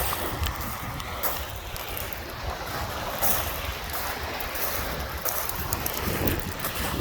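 Lake Michigan waves washing on the shore in a steady hiss, with gusty wind buffeting the microphone in a low rumble.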